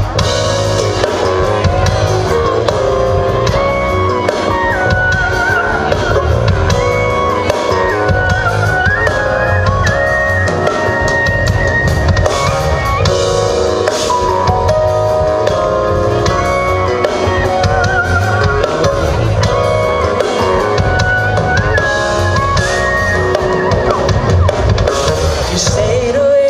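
Loud recorded music with singing over drums and guitar and a steady beat.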